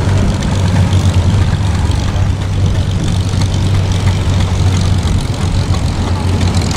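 Vintage farm tractor engine running throttled down, a steady low drone, with the tractor creeping along in low gear.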